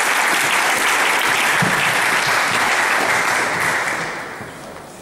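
Audience applauding, dying away over the last second and a half.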